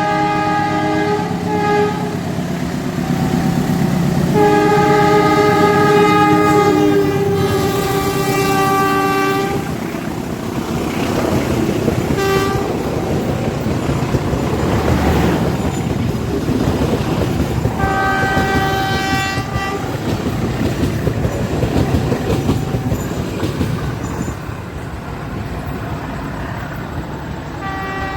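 A KAI train passing close by, its locomotive air horn sounding several chord-like blasts, the longest about five seconds and dipping slightly in pitch partway through, over the steady rumble of wheels on the rails.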